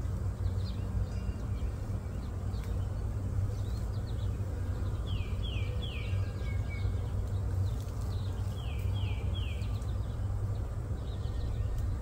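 A steady low hum, with a songbird singing twice, each time a quick run of three descending whistled notes, about five and nine seconds in.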